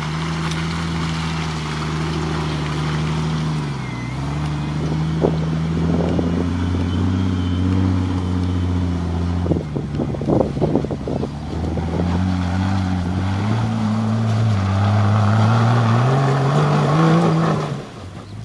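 Rock-crawling Jeep's engine running under load as it climbs, its pitch dipping about four seconds in and rising in revs late on. A cluster of knocks comes about ten seconds in.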